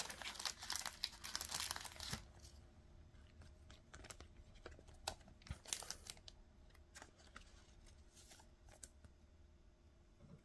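Trading card pack wrapper crinkling for about two seconds, then faint scattered clicks and rustles of cards being handled and sorted.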